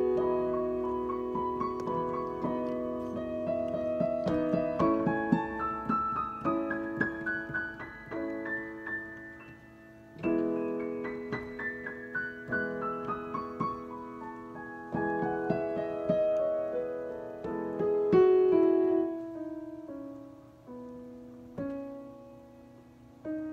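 Digital piano playing a hymn tune, with held chords and several descending runs of notes, growing quieter near the end.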